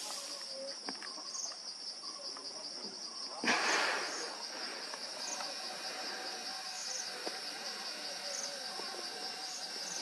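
Steady, high-pitched drone of insects, with a brief rush of noise about three and a half seconds in.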